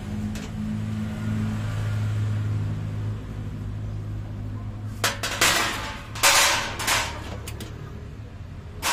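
Sheet-metal clanks and rattles as the stainless steel top panel of a gas stove is lifted off and handled: a cluster of metal knocks about five to seven seconds in and one more near the end, over a steady low hum.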